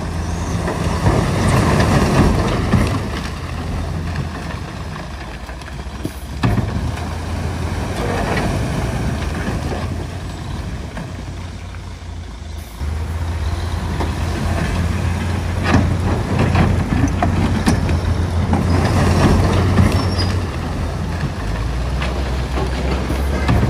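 Heavy diesel earthmoving machinery, dozers and dump trucks, running with a steady low engine drone and scattered knocks. The drone changes abruptly about six seconds in and again about twelve seconds in.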